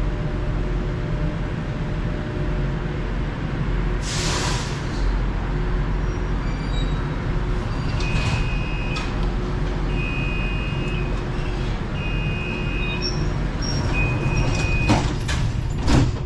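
Airport SkyTrain people mover running with a steady low rumble, with a short hiss of air about four seconds in. Then a two-note door warning tone beeps four times, about a second on and a second off, and a few sharp knocks of the sliding doors come near the end.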